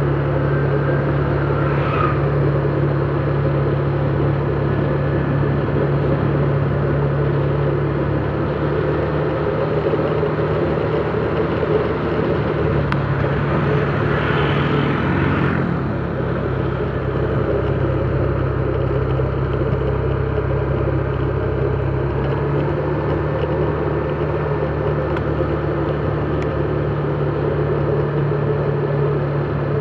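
Motorcycle engine running steadily while riding at cruising speed, a constant low hum under road noise. A brief rush of noise comes about halfway through.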